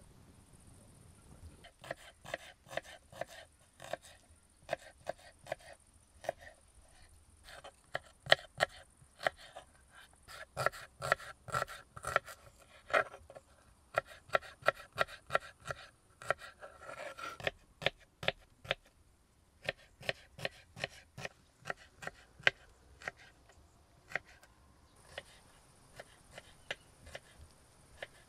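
Kitchen knife chopping a peeled onion on a wooden cutting board: a long run of sharp knocks, two or three a second, with the onion crunching under the blade.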